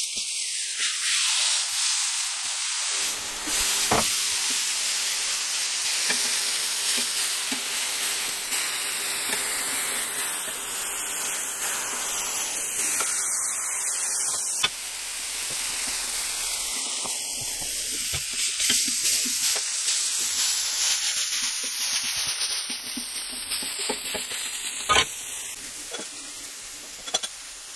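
Smashed beef burger patties sizzling loudly on a hot flat-top griddle, a steady frying hiss. A few sharp knocks of the metal tools on the griddle break in now and then.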